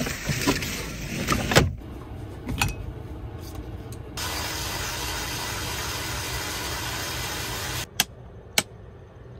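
A pleated window blind is pulled across a van window, ending in a sharp snap about a second and a half in. A steady hiss at the sink follows for a few seconds, then two sharp clicks of a wall light switch near the end.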